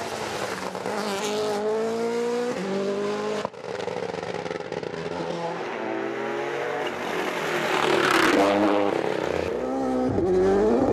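Rally car engines at full throttle, rising in pitch and dropping back again and again as they shift up through the gears. About three and a half seconds in there is an abrupt cut to another car. That car grows louder and rushes past close by about eight seconds in.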